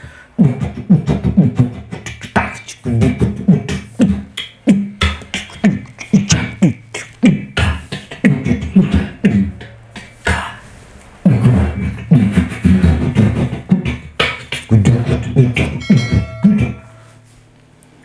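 A man beatboxing into an Eastar EAS-4002 VHF wireless handheld microphone: rhythmic mouth thumps, clicks and hisses, amplified through PA speakers close behind him with no feedback whistle or hum. It stops about a second before the end.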